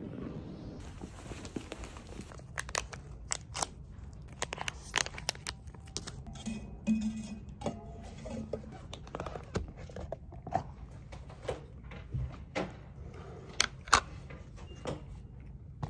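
Sharp clicks and knocks at irregular intervals, sometimes several a second, over a steady low rumble.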